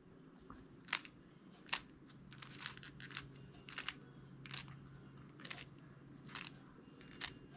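Rubik's cube layers being turned slowly by hand: about ten faint, irregularly spaced plastic clicks as the moves of a ZBLL last-layer algorithm are executed one by one.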